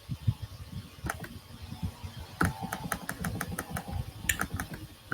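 Irregular clicking and tapping of a computer mouse and keyboard, a few clicks a second through the middle of the stretch.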